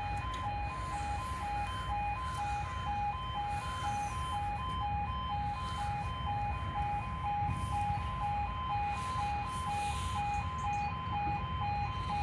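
UK level crossing warning alarm: a two-tone alarm alternating steadily between two pitches, about two changes a second. It sounds while the red road lights flash and the barriers lower ahead of an approaching train.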